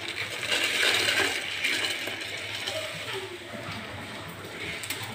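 Dried rice adai flakes tipped from a plastic bowl into a pot of water, a light pattering rustle of pieces sliding out and dropping in. Strongest in the first couple of seconds, then thinning out.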